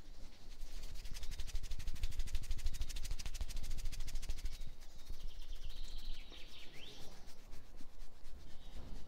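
A masseur's hands working fast and evenly in a run of quick rubbing strokes, which eases off about halfway through. Birds chirp around the middle, one call gliding down.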